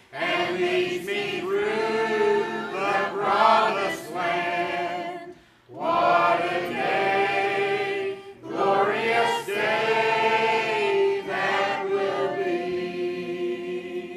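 Church choir singing together in long held phrases, breaking off briefly about five and a half seconds in and again near eight seconds.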